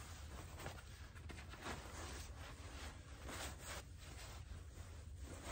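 Faint rustling of fabric as a shemagh is knotted around the waist over an oilcloth coat, with soft scattered rustles over a low background hum.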